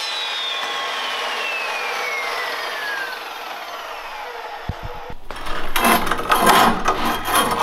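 Evolution metal-cutting chop saw's blade spinning down after a cut, a whine falling steadily in pitch over about three seconds. About five seconds in, a hand deburring tool scrapes loudly and unevenly around the inside edge of the freshly cut steel tube.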